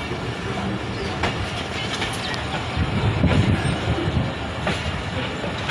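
Passenger train carriage rolling along the rails, heard from its open doorway: a steady rumble of the wheels with a few sharp clicks, roughly one a second, as the train pulls out of the station.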